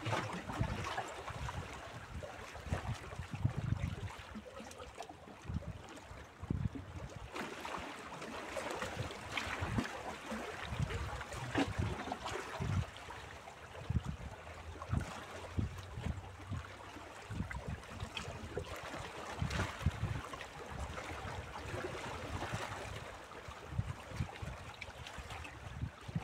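Small waves lapping and splashing against shoreline rocks in a steady, irregular wash, with gusts of wind buffeting the microphone.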